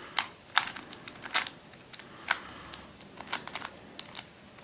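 Plastic clicks of a Witeden 2x2x3 Camouflage II twisty puzzle as its layers are turned by hand: about seven sharp, irregularly spaced clicks.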